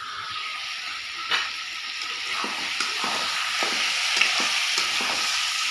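Chicken and vegetables sizzling in a kadhai on a gas burner, the sizzle growing louder. A metal spatula knocks sharply against the pan once, then scrapes through the mix in quick, repeated stirring strokes.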